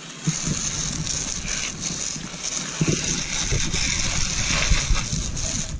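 Garden-hose spray nozzle jetting water onto a mountain bike, a steady hiss of spray with low buffeting on the microphone.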